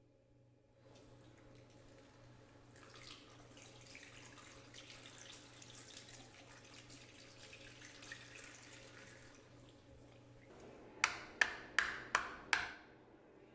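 Water running from a tap into a sink while the hair dryer's filter cage is rinsed, then five sharp knocks in quick succession near the end.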